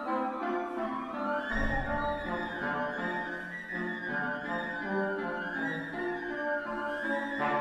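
A small live acoustic ensemble playing classical-style music, with a violin prominent alongside flute and piano, the notes moving in a steady stream.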